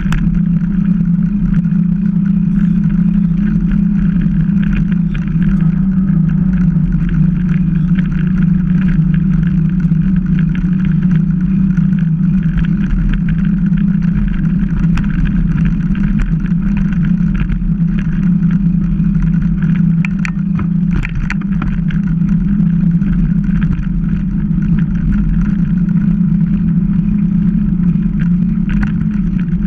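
Mountain bike rolling along asphalt, heard through a mounted action camera: a steady hum of the tyres on the road with wind rumbling over the microphone, and scattered small clicks and rattles.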